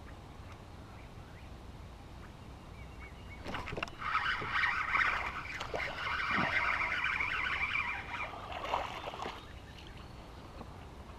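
A small hooked bass being reeled in to a kayak, splashing at the surface. The splashing and reeling start about three and a half seconds in and die down near the end.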